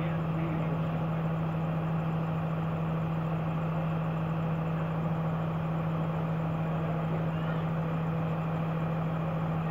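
Diesel locomotive engine idling steadily, a constant hum with one strong low tone.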